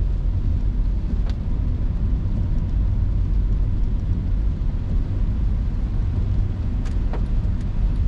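Road noise inside a moving Honda hatchback on a wet road: a steady low rumble from the tyres and engine, with a few faint ticks about a second in and again near the end.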